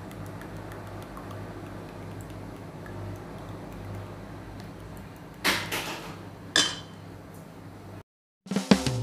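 Two sharp knocks about a second apart on a stainless steel mixing bowl, over a low steady hum. Music starts at the very end.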